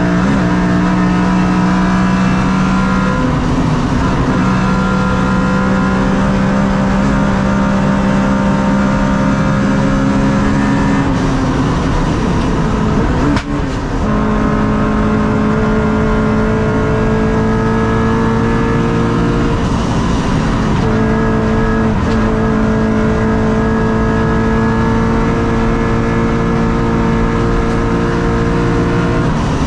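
Honda Civic VTi race car's 1.6-litre VTEC four-cylinder engine heard from inside the stripped cabin, held at high revs under hard acceleration. The pitch climbs steadily, then drops and picks up again several times as it shifts gear, with a brief dip about 13 seconds in.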